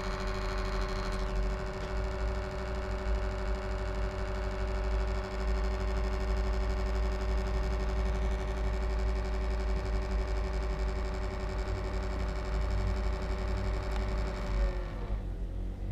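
HP Envy m6 laptop cooling fan running with a steady whirring hum and tone, the strange noise its owner is asking about. Near the end the tone drops in pitch and fades as the fan slows.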